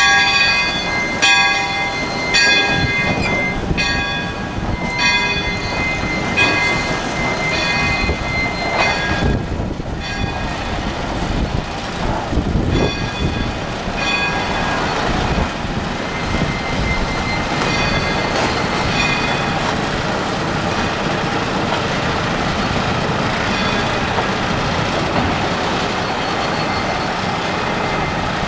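A locomotive bell ringing about once every second and a quarter over the rumble of a slow-moving train, its strokes fading out around halfway. In the second half the small diesel switcher's engine running grows louder as it comes past.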